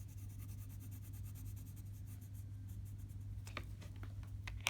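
Colored pencil shading on paper: a fast, faint scratching of short back-and-forth strokes, with a few sharper ticks of the pencil near the end.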